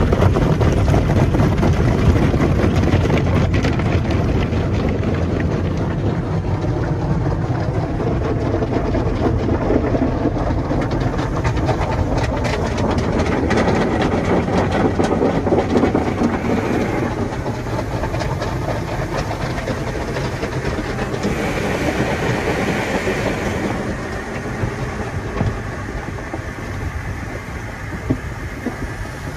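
Foam wash brushes of a Belanger tunnel car wash scrubbing and slapping against the car's glass and body with water spraying, heard from inside the car's cabin. It runs as a dense, busy clatter of slaps, loudest in the first half and easing off toward the end.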